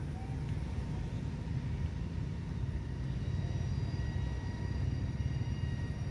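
Steady low rumble of outdoor background noise, with faint thin high-pitched tones joining about halfway through.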